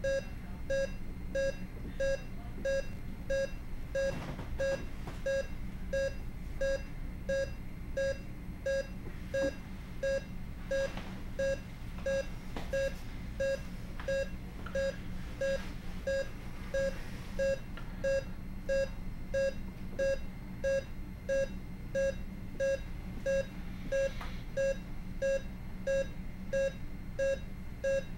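Medical equipment alarm beeping steadily, a short single-pitched beep about three times every two seconds.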